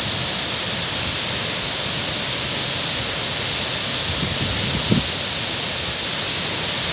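Wachirathan waterfall: falling water making a steady, even rush, with a brief low bump about five seconds in.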